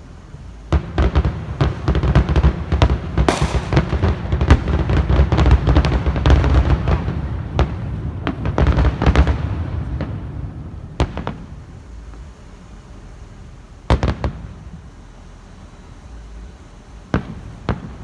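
Fireworks going off: a dense, rapid run of bangs lasting about nine seconds, then a few single bangs spaced out after it.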